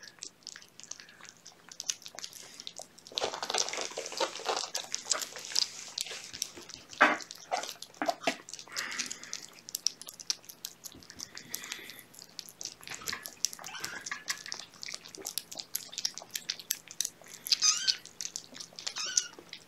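Kittens and their mother cat eating wet cat food from a plate: a continual patter of small wet smacking and chewing clicks. A brief mew rises out of it near the end.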